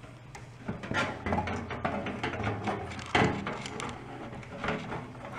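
Clicks and knocks of a screwdriver and a small motherboard screw being handled against a metal computer case, loudest about three seconds in.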